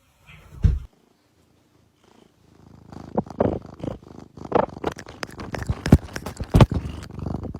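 A cat purring loudly, close up, in a dense rhythmic rumble that starts about two and a half seconds in, after a short thump near the start.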